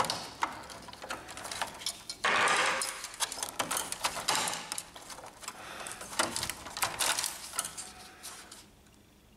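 Small irregular clicks and rubbing of plastic and rubber as gloved hands twist the rubber sleeve off the Epson XP-2100 printer's white plastic paper feed roller shaft, with a longer scraping rub about two seconds in.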